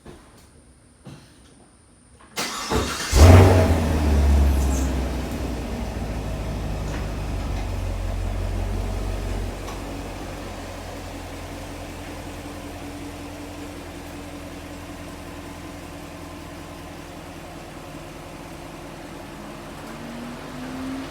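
2021 Chevrolet Camaro SS's 6.2-litre LT1 V8 starting, with a loud flare of revs as it catches, then a high idle that drops to a lower steady idle about seven seconds later. A rising whine comes in near the end.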